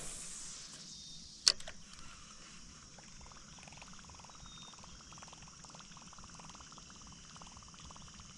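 Faint steady high-pitched insect chorus, like crickets, with one sharp click about a second and a half in and a run of soft, rapid ticks through the middle.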